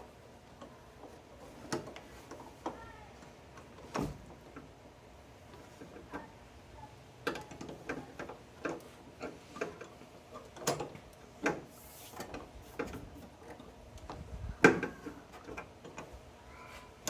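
Irregular clicks and knocks of hand tools on metal inside a car door as a nut on the wing-window assembly is worked on, coming more often in the second half with one louder knock near the end.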